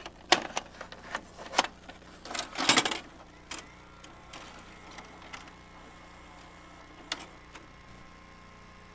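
A run of sharp clicks and clattering knocks over the first few seconds, a couple more clicks later, over a faint steady hum.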